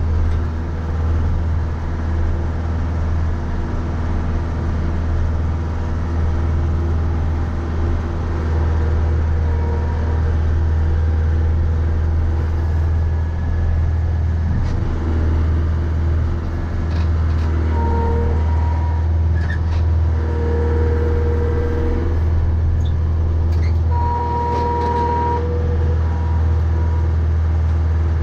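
Mahindra 3550 tractor's diesel engine running steadily under load while plowing snow, a deep constant drone. Several short, steady higher-pitched whines sound in the second half.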